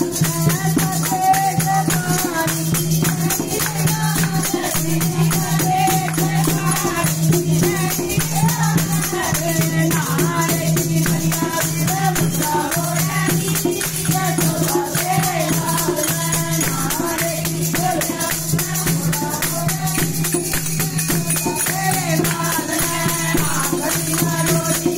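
Hindu devotional bhajan sung by women, with a steady beat of jingling hand percussion and a low sustained drone under the voices.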